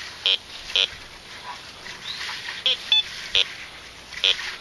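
Bounty Hunter Land Ranger Pro metal detector giving a string of short, choppy beeps, about six of them, as its search coil sweeps over iron and trash in the ground in discrimination mode 4.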